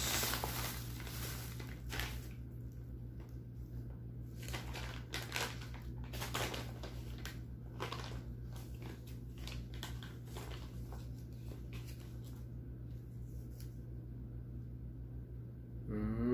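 Thin plastic bags crinkling and rustling in irregular short bursts as they are handled and pulled open, over a steady low hum.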